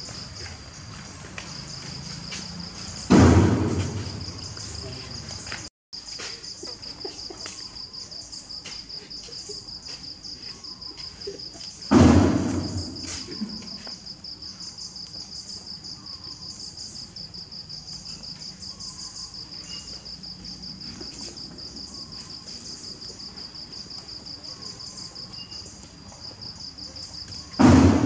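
Steady insect drone, high-pitched and rapidly pulsing, with three sudden loud thumps that each die away over about a second.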